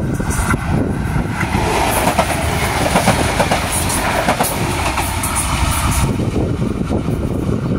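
A pair of coupled Adelaide 3000-class diesel-electric railcars passing close by: engines running and wheels clattering over the rail joints. It is loudest and most clattery as the cars go by, thinning after about six seconds as they move away.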